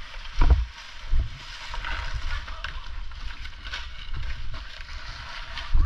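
Dry palm fronds rustling and crackling as they are grabbed and dragged by hand, with a few heavy low thumps on the helmet-mounted microphone, about half a second in, just after a second, and near the end.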